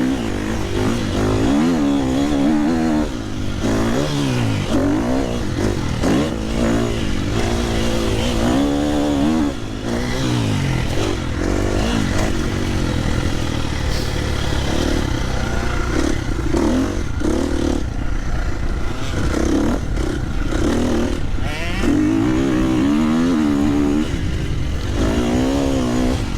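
Motocross bike engine revving up and falling back again and again as it is ridden around a dirt track, its pitch rising and dropping every second or two.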